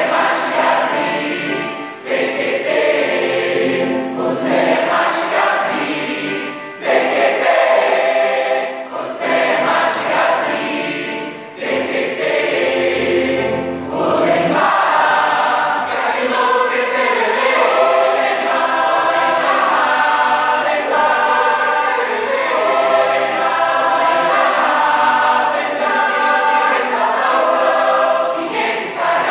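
Mixed youth choir singing in several-part harmony, with lyrics in Lung'ie, a creole language of São Tomé and Príncipe.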